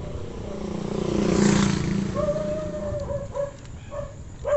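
A motorcycle passes close by, its engine and tyres swelling to their loudest about a second and a half in and then fading away.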